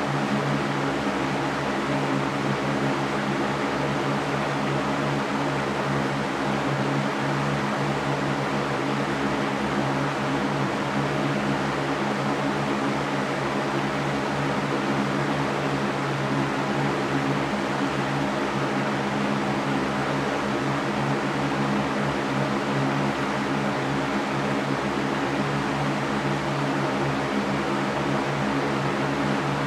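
Electric fan running steadily: an even whooshing hiss of moving air over a steady low motor hum, with no change.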